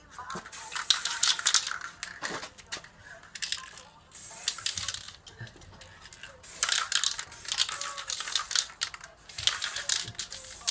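Scratchy scraping on metal, in four bursts of about one to two seconds each with clicking strokes.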